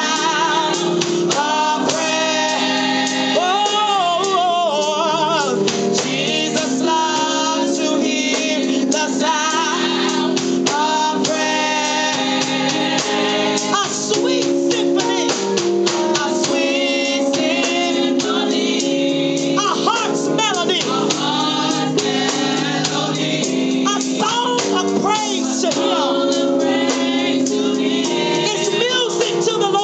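Live gospel praise music: a praise team of women's and men's voices singing over sustained chords and a steady beat.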